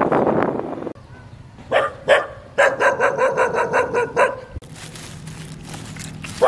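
A dog barking: two single barks, then a quick run of about eight barks. A steady rushing noise cuts off about a second in, and a softer crinkling of a plastic bag follows the barks near the end.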